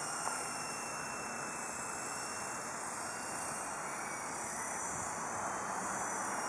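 Interceptor 052 toy RC helicopter in flight: its small electric motors and rotors make a steady faint whir with a thin high whine, over an even hiss.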